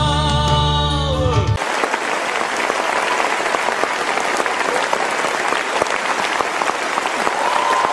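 Music with held tones cuts off abruptly about a second and a half in, and an audience's applause takes over for the rest.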